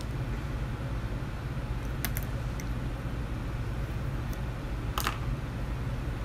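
Makeup brushes being handled, giving a few light clicks and taps: a quick double click about two seconds in and a sharper click about five seconds in, over a steady low hum.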